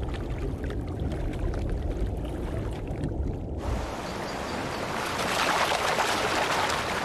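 Water: a low, muffled rumble, then about three and a half seconds in a sudden change to the bright rush and splash of a stream.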